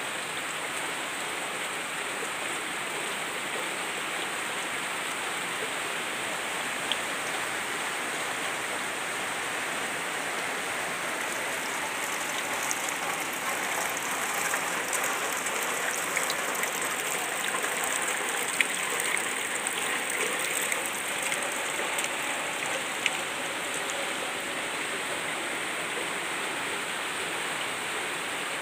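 Heavy rain falling steadily on leaves and vegetation: a dense, even hiss that swells a little in the middle, with a few sharp drip ticks.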